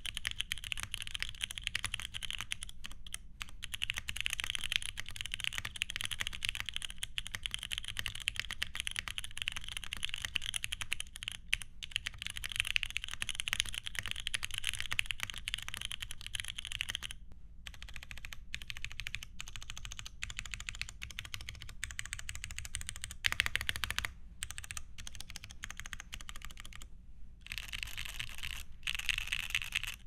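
Typing on a Typface Univers tadpole-mounted 70% custom mechanical keyboard with stock factory-lubed Cherry MX2A Brown tactile switches in an aluminum plate and GMK Striker keycaps: fast, continuous keystrokes with a gentle, high-pitched sound. The typing thins out with short pauses past the middle, then picks up again near the end.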